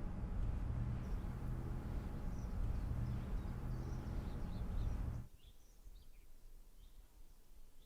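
A car engine idling with a steady low rumble, which cuts off suddenly about five seconds in. After that, faint birds chirp.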